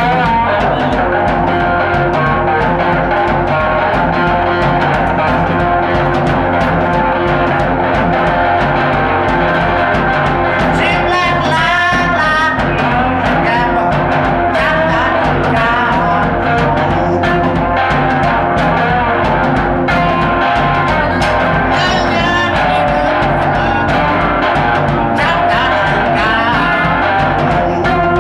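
Live electric blues from a guitar-and-drums duo: electric guitar over a drum kit keeping a steady beat, with a sung vocal line at times.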